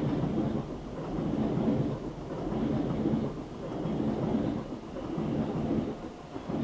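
A loud, low rumble that swells and fades in waves and dies down at the very end, heavy enough to halt a conversation.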